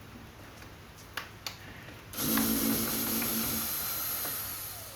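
A couple of light clicks, then a cordless drill runs for about a second and a half, backing out a screw, and winds down with a falling whine.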